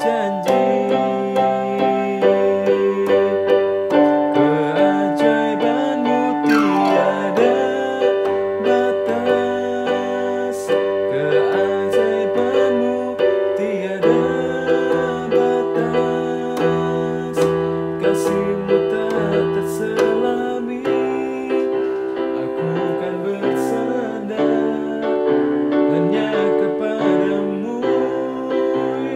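Yamaha portable keyboard played in a piano voice, with sustained chords and a melody line changing every second or two.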